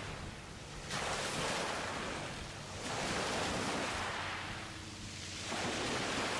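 Small waves washing in, a hissing surge about every two to three seconds, over a faint steady low hum.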